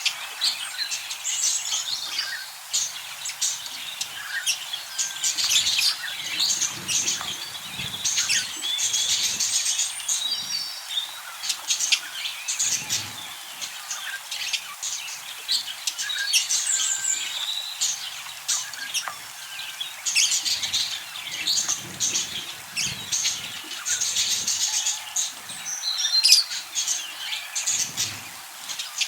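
A group of budgerigars chirping and chattering continuously, many quick high chirps and warbles overlapping, with occasional soft low thumps.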